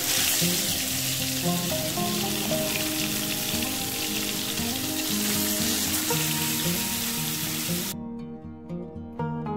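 Marinated whole fish sizzling in hot coconut oil in a frying pan, with a fresh fish being laid in at the start. The sizzle cuts off suddenly about eight seconds in, leaving only background music.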